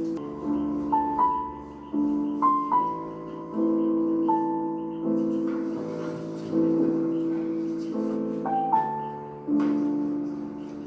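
Background music: slow, gentle piano playing held chords under a simple melody, each chord struck and left to fade.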